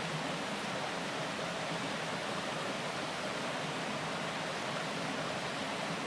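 Shallow stream babbling over a rock bed, a steady, even rush of running water.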